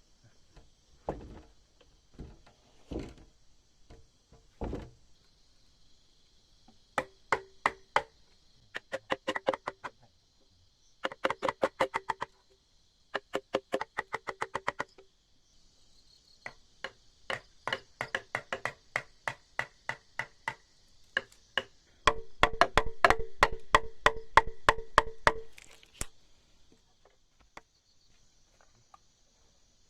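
Runs of rapid, ringing knocks, several blows a second, like hammering on timber, coming in bursts of one to four seconds and loudest and densest a few seconds from the end. Insects chirr steadily behind.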